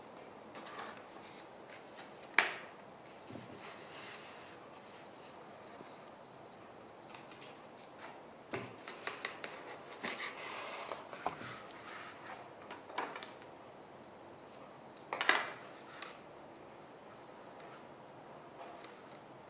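Paper pages and a cardboard journal cover being handled while yarn is pulled through the stitched spine and tied off: faint rustles and small knocks. The loudest is a sharp click about two seconds in, and there is a longer burst of rustling around fifteen seconds.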